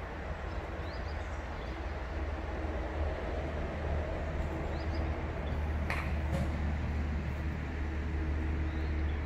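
Steady low rumble of distant road traffic with a constant engine-like hum, a few faint high chirps, and one sharp click about six seconds in.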